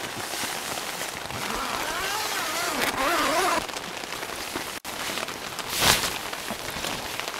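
Rain falling on a tent, heard from inside as a steady hiss of drops on the fabric. A short wavering hum rises and falls near the middle, and a brief sharp rustle comes about six seconds in.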